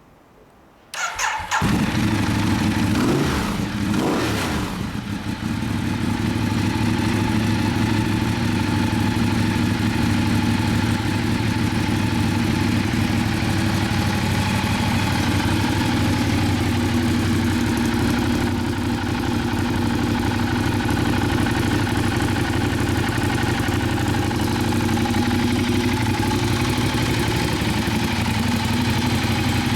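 Ducati Diavel's 1198 cc L-twin engine, fitted with an aftermarket silencer, starting about a second in, revved briefly twice, then idling steadily.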